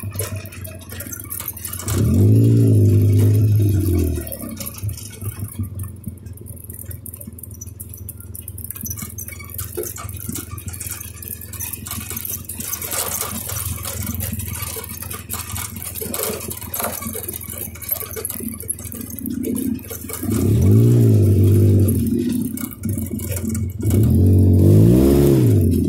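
ATV engine running on a trail ride, revving up and back down about two seconds in and twice more near the end. Between the revs it is quieter, with rattling and clatter from the vehicle.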